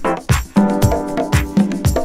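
Background music with a steady drum beat about twice a second under sustained bass and keyboard notes.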